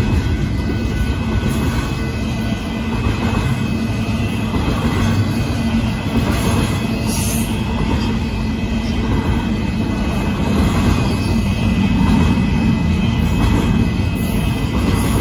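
Union Pacific intermodal freight train passing: the steady rumble and rattle of its cars' wheels running over the rails.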